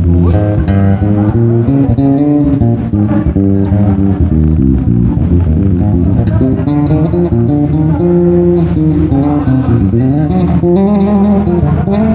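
Yamaha TRB 1005J five-string electric bass played in a continuous run of plucked notes, sliding between pitches a few times near the end.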